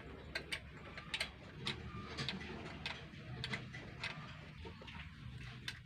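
Scattered light clicks and taps, irregular and about one or two a second, from hands handling vehicle wiring and tools, over a low steady hum.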